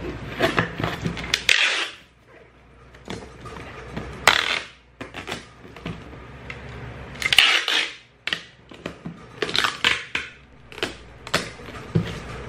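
Packing tape pulled off a roll in several short noisy pulls and pressed down onto a cardboard box, with knocks and rustles of the box flaps being handled.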